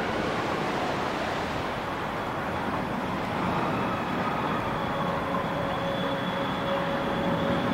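Heritage tram running along the track: a steady rolling rumble, with a faint steady whine coming in about five seconds in.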